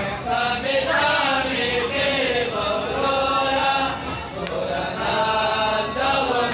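Male reciters chanting a Pashto matam (a Muharram mourning lament sung for chest-beating) into a microphone, in rising and falling phrases with short breaks between lines.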